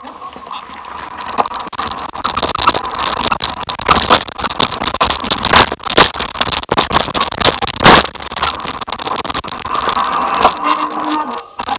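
Rough, noisy rattling and crunching of a ride down a rocky dirt trail, with tyres on loose stones and many sharp knocks as it jolts over rocks. It starts about as the ride begins and stays loud, with the hardest knock about eight seconds in.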